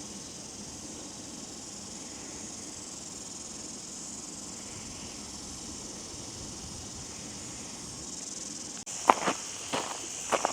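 A steady, high-pitched chorus of insects chirring. Near the end it is broken by a few footsteps.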